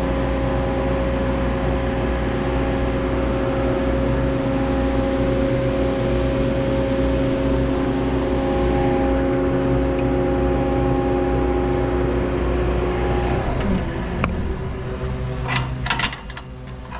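Engine running steadily at an even pitch. About 13 seconds in its note drops and it quietens, and a few sharp clicks follow near the end.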